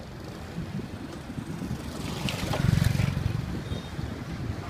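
A vehicle passing close by over steady street noise, growing to its loudest a little past halfway and then fading.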